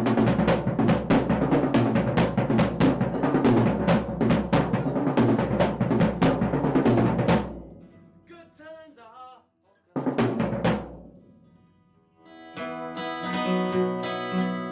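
Rock music with busy drumming that fades out about seven and a half seconds in. A single loud hit rings out and dies away a couple of seconds later, then strummed guitar chords start near the end.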